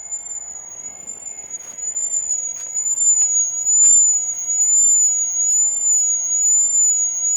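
Ultrasonic dog bark deterrent set to its lowest setting, giving out a loud, steady high-pitched tone that is audible to the ear and wavers slightly in pitch. A few faint clicks sound under it.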